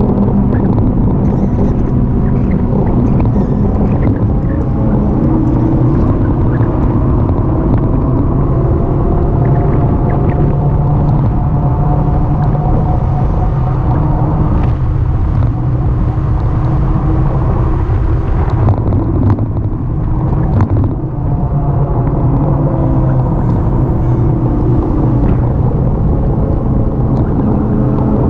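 Riding noise picked up by a camera on a moving e-bike: loud wind rumble on the microphone, with a humming tone that slowly rises and falls.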